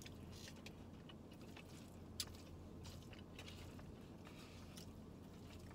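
Faint close-up chewing and small eating noises from a burrito bowl being eaten, with scattered short clicks, the sharpest about two seconds in, over a low steady hum.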